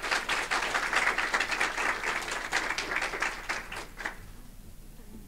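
Audience applauding, a short round of clapping that dies away about four seconds in.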